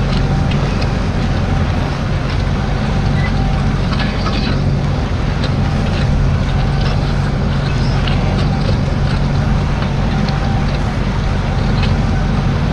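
Massey Ferguson 5712 SL tractor's diesel engine running steadily under load while ploughing, chugging along at about 1400 rpm, heard from inside the cab.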